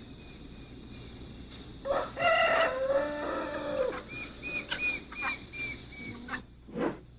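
A rooster crows once, about two seconds in, for about two seconds; it is the loudest sound. A smaller bird chirps a quick run of short, evenly spaced high notes before and after it.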